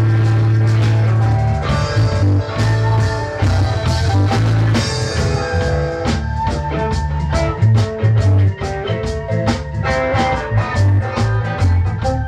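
Live rock band playing: guitars and held low bass notes over a drum kit. About six seconds in, the drums settle into a quick, steady beat of cymbal strikes.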